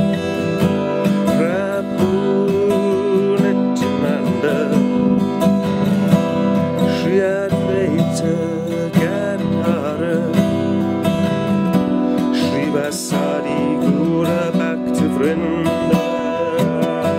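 Steel-string acoustic guitar strummed in a steady rhythm of chords, with a wavering melody line over it.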